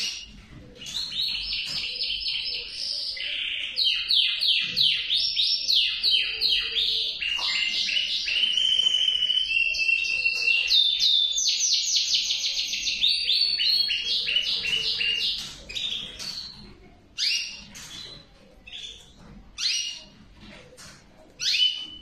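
Male canary singing: a long song of fast trilled phrases, each a quick run of repeated notes, that goes on for about fifteen seconds and then gives way to scattered short chirps.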